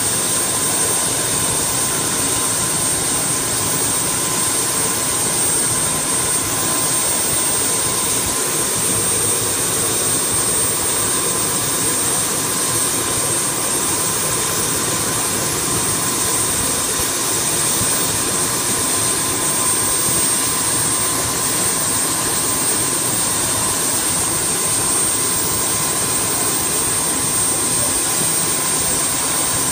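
Turbine helicopter running steadily on the ground with its main rotor turning: a constant high-pitched turbine whine over a loud, even rushing noise.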